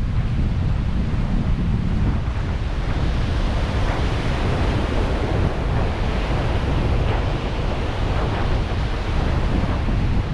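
Surf washing onto the shore, heard through wind buffeting the microphone with a heavy low rumble. The wash swells for a few seconds in the middle.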